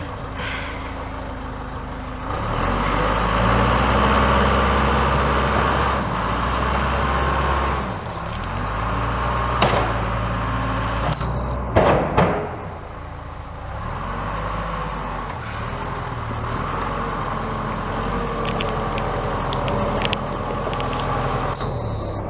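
Backhoe diesel engine working, revving up and easing off in several long swells as it clears snow, with sharp clanks about ten and twelve seconds in.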